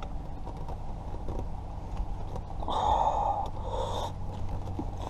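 A person breathing hard, with two strong exhalations about three and four seconds in, over faint scattered clicks.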